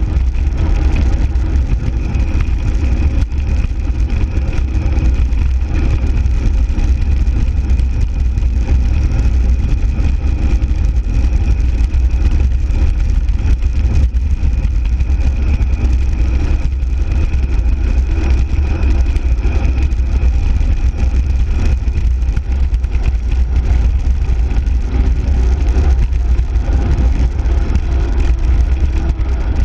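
Steady rumble of wind buffeting the microphone, with tyre noise from a bicycle rolling along a rough asphalt road.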